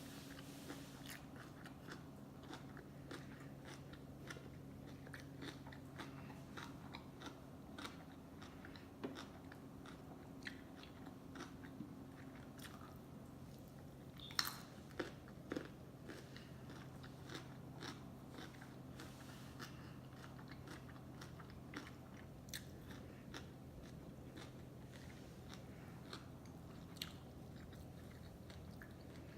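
Close-up chewing and biting of sushi: a steady stream of wet mouth clicks and smacks, with three louder bites a little past halfway.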